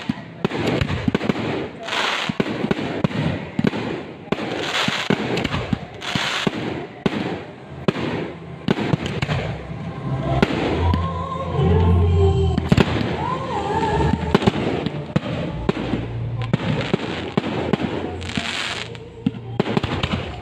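Aerial fireworks bursting one after another, sharp bangs followed by crackling. Near the middle, a few seconds of wavering pitched sound over a low rumble.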